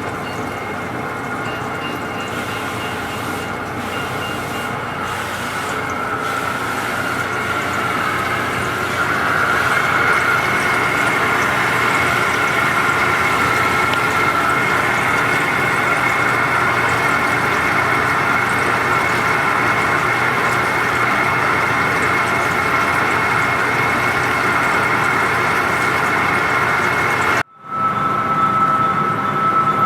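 Lathe turning a large part: steady machining noise with a high whine that grows louder about eight seconds in. The sound cuts out for an instant near the end and comes back with a slightly different whine.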